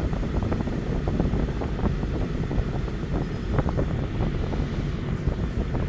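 Steady low rumble of a car interior, with frequent small clicks and rattles as the metal tongue of a seat belt is fumbled at the buckle.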